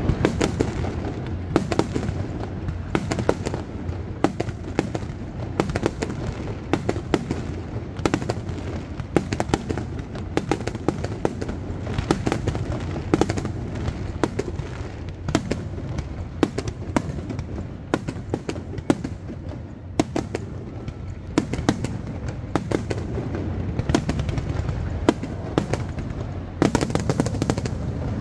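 Aerial fireworks display: a rapid, continuous barrage of shell bursts and crackling stars, many sharp bangs a second over a steady low rumble, growing denser and louder near the end.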